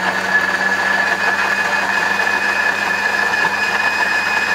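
Electric juicer-blender motor running steadily at full speed, grinding a wet spice-and-herb masala paste in its jar, with a constant high whine over the motor hum.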